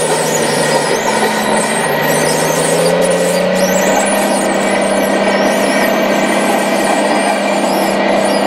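Radio-controlled model Komatsu crawler bulldozer driving on its tracks: a steady mechanical whine from its drive that wavers slowly in pitch as its speed changes.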